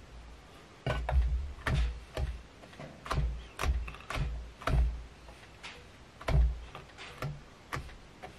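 A small brush stroked quickly through fly-tying fibers spun in a dubbing loop to open them out, giving over a dozen irregular scratchy strokes, each with a dull knock, starting about a second in.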